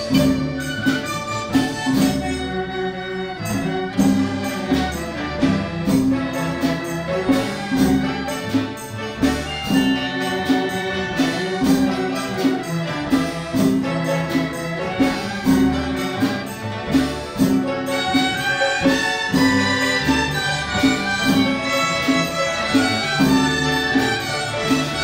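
Instrumental music from a mixed school ensemble: mallet percussion, drums, gong and tambourine keep a steady beat under bowed strings (cellos and erhu).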